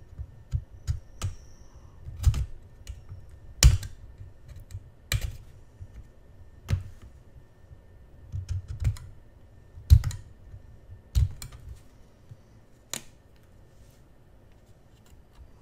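A hobby knife blade scoring and cutting a plastic model fuselage, making a scattered series of sharp clicks and taps of blade and plastic, the loudest about four and ten seconds in.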